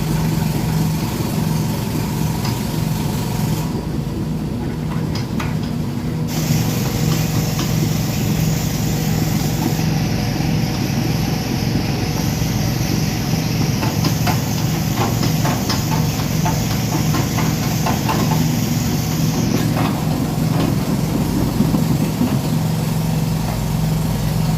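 Excavator's diesel engine running steadily with an even, pulsing low hum. Scattered sharp clicks and taps come in about two-thirds of the way through.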